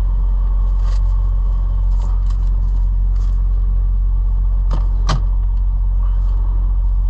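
Steady low drone of a semi-truck's diesel engine heard inside the cab as the truck creeps forward in a queue, with two sharp clicks close together about five seconds in.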